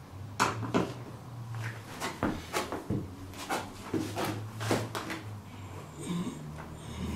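Timber floorboards being handled and laid down, giving an irregular run of about a dozen sharp wooden knocks and clacks as board meets board and floor.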